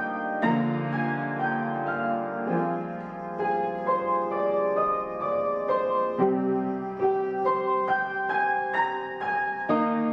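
Slow piano music: several notes sounding together, with a new chord or note struck about every half second.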